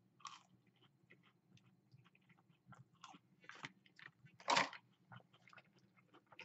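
Close-up chewing of a Burger King pretzel-breaded chicken fry: small crisp crunches and mouth clicks, with one louder crunch about four and a half seconds in.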